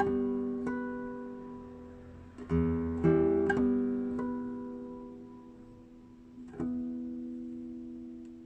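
Acoustic guitar playing the closing bars of a barcarolle in slow plucked chords. A final chord is struck about two-thirds of the way in and left to ring, fading away.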